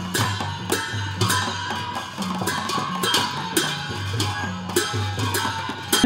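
Traditional procession music: a group of bamboo flutes playing a tune over drum beats and repeated sharp percussion strikes.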